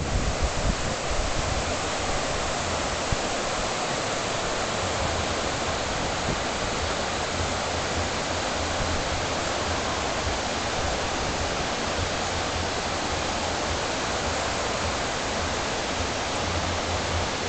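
Fast-flowing river water rushing steadily over rapids and a weir, a constant even rush. A few low thumps come in the first second or so.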